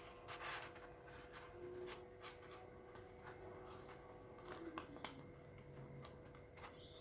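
Faint rustling and handling of paper as a cardboard toilet roll is wrapped in red paper, with scattered small clicks and taps, over a faint steady hum.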